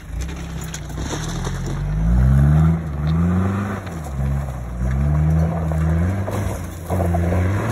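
A 4WD's engine revving hard and easing off several times as it claws up a steep, loose dirt hill under load, loudest about two to three seconds in. Stones and gravel crunch under the tyres.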